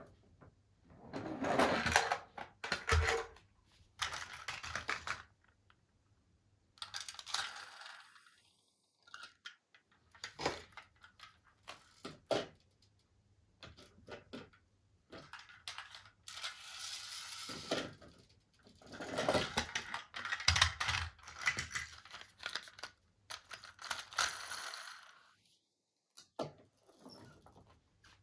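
Plastic toy vehicles clattering and rattling, with clicks and knocks coming in irregular bursts separated by short pauses.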